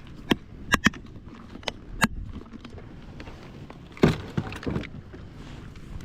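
Several sharp clicks and knocks in the first two seconds, then a heavier knock about four seconds in followed by a few lighter ones, over a low rumble.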